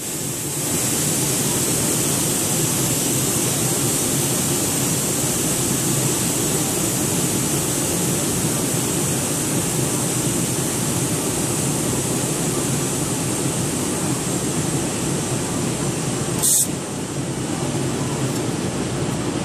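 Steady machine hum with a high hiss over it. A brief sharp hiss sounds about three-quarters of the way through.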